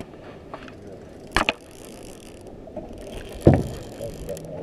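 Conventional boat fishing reel being handled and cranked, its gears and pawl ticking, with a sharp knock about a second and a half in and a heavier thump a couple of seconds later.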